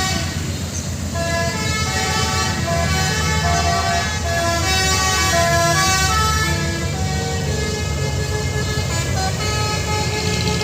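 Truck's telolet horn, a multi-trumpet musical air horn, playing a melody of held notes that step up and down in pitch, over the low rumble of the truck's engine.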